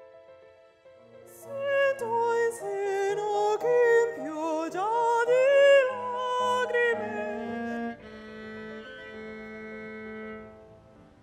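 A woman singing opera with wide vibrato over soft accompaniment, climbing to loud held high notes. About eight seconds in the voice drops out and sustained bowed string notes carry on, fading out near the end.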